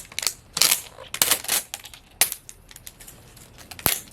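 Hard plastic packaging of a Mini Brands capsule being worked open by hand: several short crinkling, tearing bursts and sharp plastic clicks, with one especially sharp click near the end.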